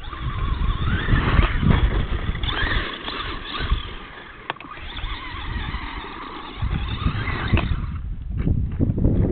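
Traxxas Stampede radio-controlled monster truck's motor whining high, rising in pitch as it accelerates and easing off again several times, with wind rumbling on the camera microphone. The whine stops about eight seconds in.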